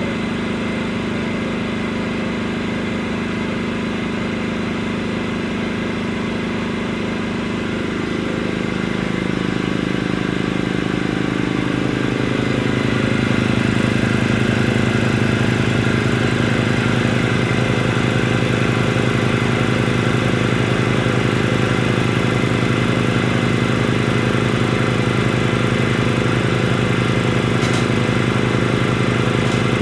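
Ingersoll Rand 2340 two-stage air compressor, driven by a 5 HP, 220-volt electric motor, running steadily with a rapid pulsing hum. Its tone shifts and it grows louder between about 8 and 13 seconds in, then holds steady.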